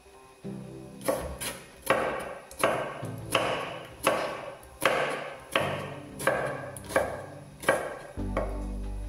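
Chef's knife chopping cucumber on a wooden cutting board: a steady run of about a dozen chops, roughly three every two seconds. Soft background music runs underneath and swells near the end as the chopping stops.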